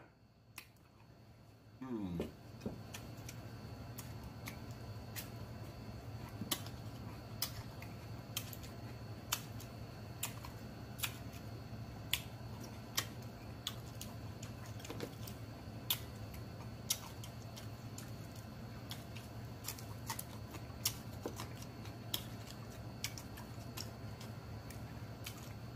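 Close-miked chewing of rice and sausage: soft wet mouth clicks and lip smacks at irregular intervals, over a steady low hum.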